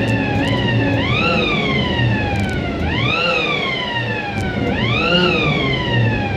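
A siren sounded from the 1947 Chevrolet pickup to signal its arrival. It wails up quickly and slides slowly back down, several times at uneven intervals, over the truck's engine running.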